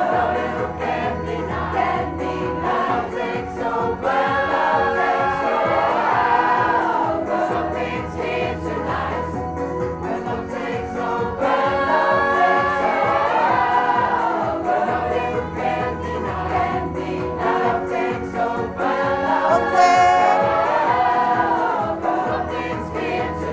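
A large pop choir of mostly women's voices with some men singing a song together, in sung phrases of a few seconds each.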